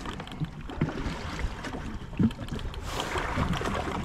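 Wind on the microphone and sea noise on a jet ski at sea, with water slapping and knocking against the hull at irregular intervals. A louder rush of hiss comes in about three seconds in.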